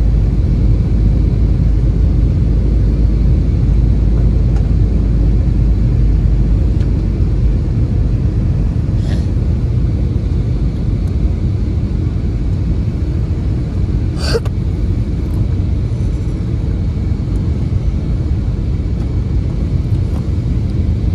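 Steady low cabin rumble of an Airbus A320-family airliner's engines and rushing air during its descent to land. Two brief clicks cut through in the middle, the second louder.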